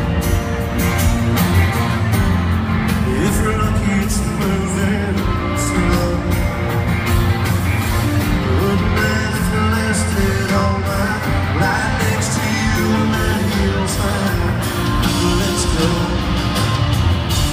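A live country rock band with a male lead singer, played through a stadium PA and recorded from the crowd.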